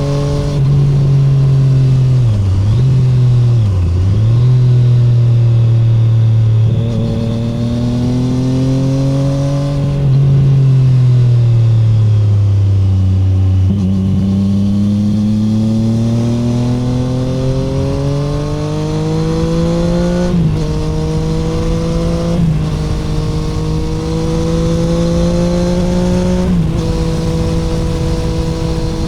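2017 Triumph Street Triple 765R's three-cylinder engine breathing through an SC Project SC1-R titanium exhaust with no dB killer, heard onboard while riding. The engine note rises and falls with the throttle, dips twice early on and sags near the middle, then climbs steadily through several gear changes, each a short drop in pitch.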